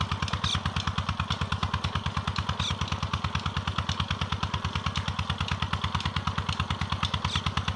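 A small engine running steadily at idle, with a fast, even beat of about ten pulses a second.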